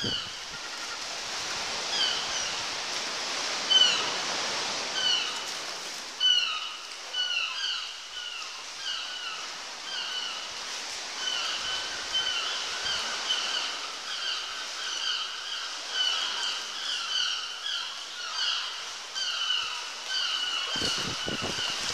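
A colony of seabirds calling: many short, high, downslurred calls overlapping a few times a second, over a steady wash of noise.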